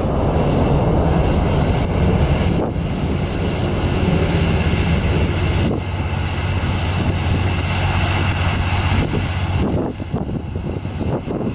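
Continuous rushing rumble from the rockets of a Smerch multiple rocket launcher salvo heading away after launch. The rumble is deep and steady, then wavers and drops off about ten seconds in.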